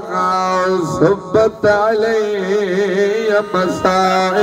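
A man's voice, amplified through a microphone, chanting a lament in long held notes with a wavering pitch: the sung style of a masaib recitation. It breaks off briefly twice about a second in.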